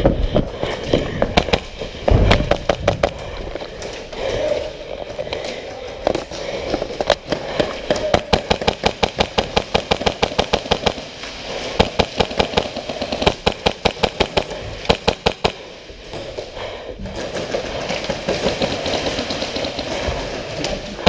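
Airsoft rifles firing: many sharp, snapping shots in rapid strings, several a second, with short breaks between volleys.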